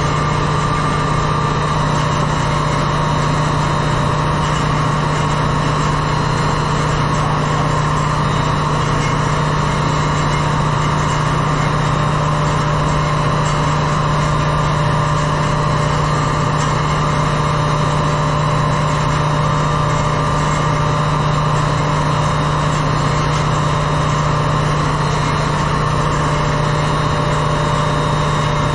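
Steady engine-room machinery drone aboard a ship, with a strong constant low hum and no change in pitch or level.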